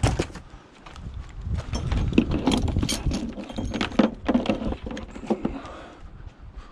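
Scrap metal being handled and turned over: a run of irregular knocks, clinks and rattles.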